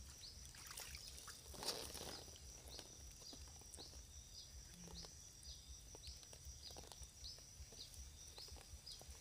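Faint outdoor quiet with a small bird's short high chirp repeating about every half second over a thin steady high hum.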